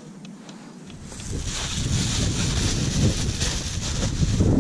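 A few faint clicks, then from about a second in, wind buffeting the camera microphone: a gusty rumble with a hiss over it that grows louder.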